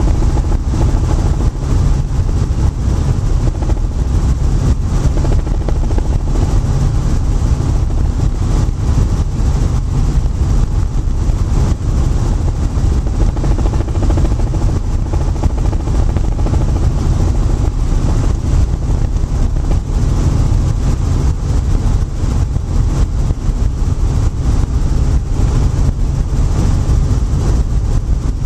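Robinson R44 helicopter in flight heard from inside the cockpit: loud, steady engine and rotor noise, mostly a deep rumble with a hiss above it.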